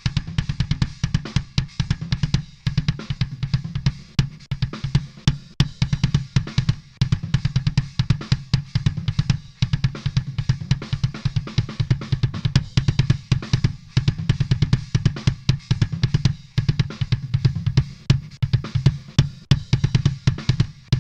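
Electronic drum track playing back at 140 BPM, with kick, snare and hi-hats. The kick's low end is heavy, thickened by a parallel chain that bandpasses the bass frequencies, saturates them and blends them back with the original.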